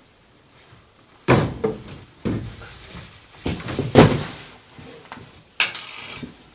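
Heavy thumps and bangs as a person hangs from overhead climbing holds and drops down. There are about five separate knocks, the loudest about four seconds in.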